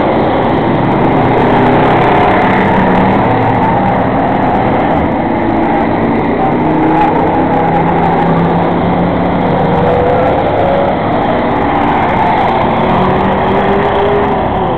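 Engines of a pack of enduro race cars running hard around an oval, a loud steady din, with engine notes sliding up and down as cars go by.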